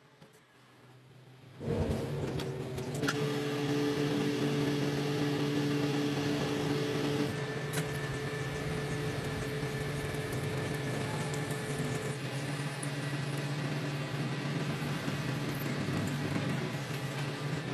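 A machine starts up about two seconds in and runs steadily with an even hum.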